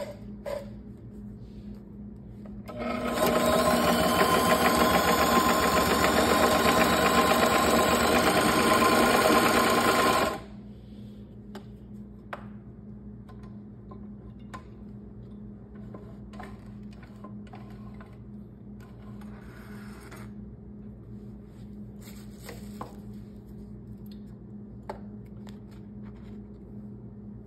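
Consew CP206RL portable walking-foot industrial sewing machine stitching vinyl at a steady speed, starting about three seconds in and stopping abruptly some seven seconds later. After that only a low steady hum and a few faint clicks remain.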